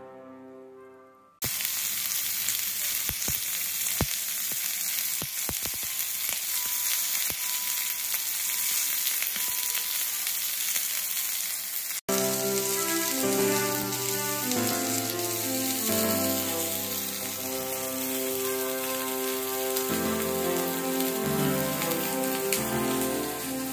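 Meat sizzling on an iron griddle over a charcoal hearth: a dense, even frying hiss with a few sharp pops. About halfway through, music with long held notes comes in over the sizzle and is the loudest sound from then on.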